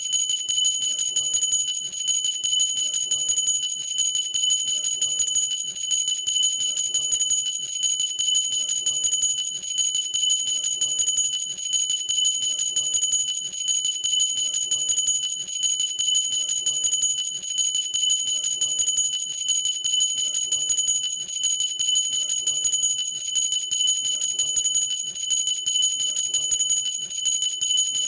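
Cut-crystal glass hand bell shaken continuously by hand, its clapper striking rapidly and steadily so the high, clear ringing never dies away.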